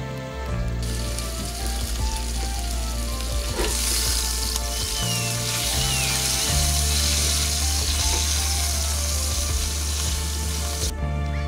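Food sizzling in a frying pan on a small gas camping stove as it is stirred. The sizzle starts about a second in and cuts off near the end, over background music with a steady beat.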